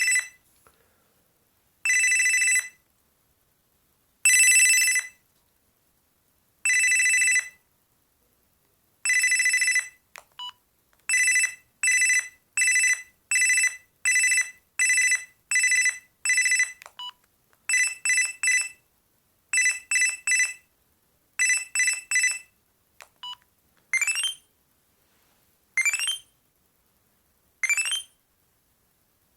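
Panasonic EB-GD93 mobile phone playing its built-in ringtones one after another as a preview. First comes an electronic trill repeating about every two seconds, then quicker beep patterns, then rising chirps about every two seconds. A short key beep sounds as each next tone is selected.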